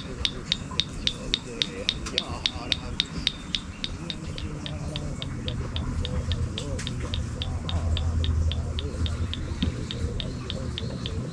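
A steady series of sharp, high ticks, about four a second, under a faint low voice.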